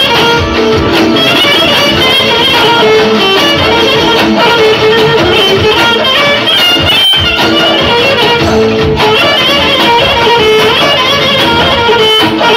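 Live Balkan band music, loud: an electric violin plays the lead melody over keyboard and percussion, with a brief break about seven seconds in.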